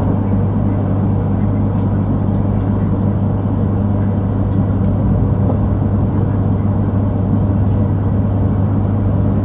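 Steady running noise inside the passenger car of a Yamagata Shinkansen Tsubasa train under way: a constant low hum and rumble at an even level.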